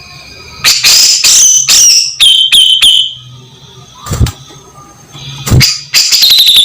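Cucak jenggot (grey-cheeked bulbul) calling loudly: a harsh, scratchy burst about a second in, two sharp single notes in the middle, and a fast run of ticking, chattering notes near the end, the 'beset ngipik' call used to train songbirds.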